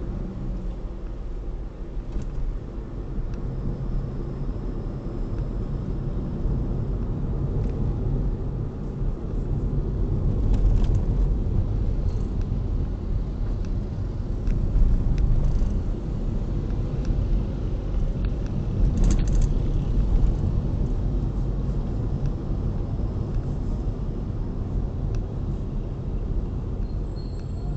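Steady low rumble of a car's engine and tyres heard from inside the cabin while driving, swelling a little in places.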